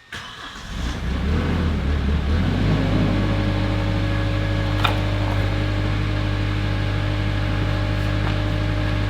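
Wacker Neuson WL32 wheel loader's diesel engine starting up, its revs wavering and rising for a couple of seconds before settling into a steady idle.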